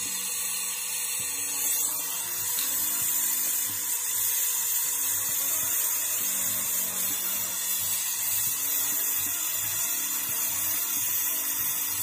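Gas torch flame hissing steadily while it brazes shut the clamped, pinched-off process tube on a refrigerator compressor, sealing the freshly charged system. Soft background music underneath.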